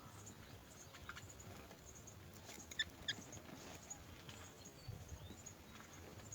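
Faint scratching and tapping from birds in a nest, with two brief high squeaks near the middle.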